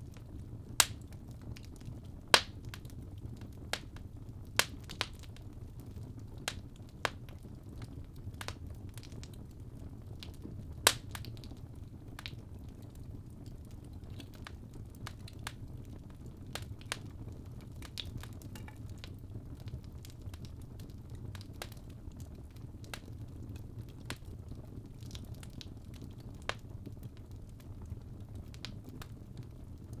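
Fire burning in a fireplace: a steady low rumble of flames with irregular sharp crackles and pops. The loudest pops come about two seconds in and again about eleven seconds in.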